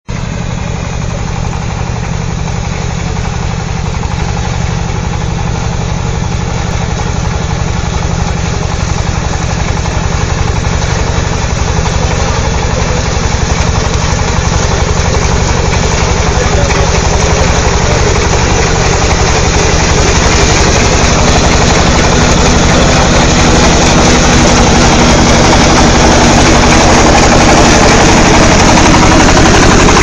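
Greaves 17.2 hp diesel engine of a mini rice combine harvester running steadily under load while it harvests, getting gradually louder.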